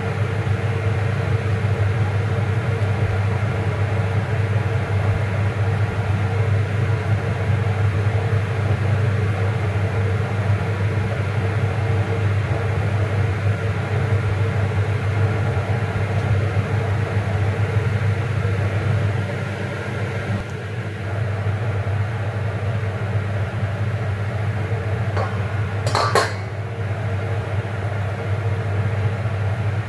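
Wooden spatula stirring greens in a steaming wok on a gas burner, over a steady low hum. There is one sharp clink of the pan late on.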